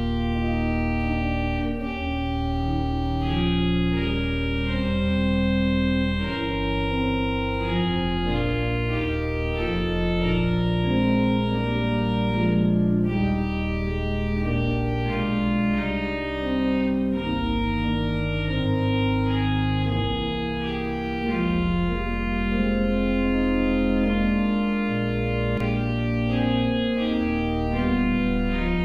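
Organ music: slow, sustained chords that change every second or so over deep held bass notes.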